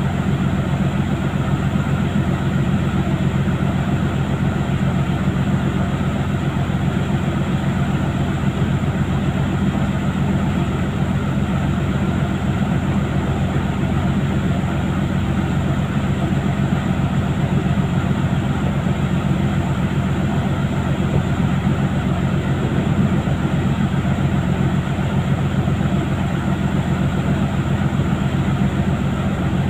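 Steady low drone of a large fishing vessel's engine and deck machinery running under way, unchanging throughout.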